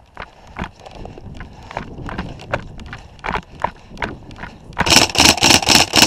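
Footsteps of an airsoft player moving in on foot, steps landing about every half second, then, near the end, about a second of louder, quicker steps at roughly five a second as he breaks into a run.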